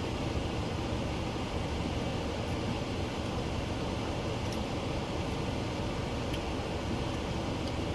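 Steady low rumble with an even hiss, the sound of a running engine or fan, with a few faint clicks and taps now and then.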